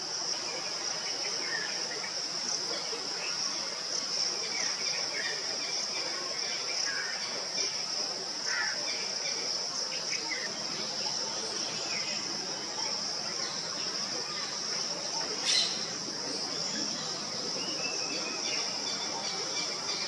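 Steady high-pitched drone of an insect chorus, with faint scattered bird chirps and one brief sharp click about three quarters of the way through.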